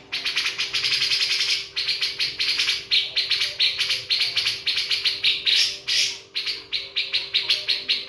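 Birds chirping in quick, high trills, one run after another with hardly a break. A faint steady hum runs underneath.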